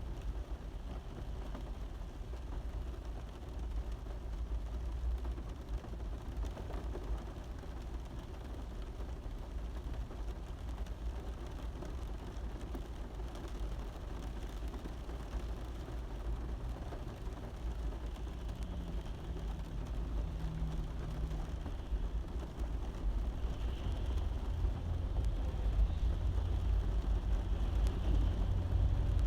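Rain falling steadily on a car's roof over a deep low rumble, growing a little louder near the end.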